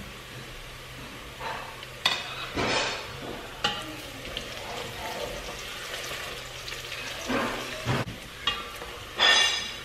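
Onions frying and sizzling in a stainless steel pot as a wooden spoon stirs and scrapes through them, with a few sharp knocks of the spoon against the pot. A low steady hum runs underneath and stops about three-quarters of the way through.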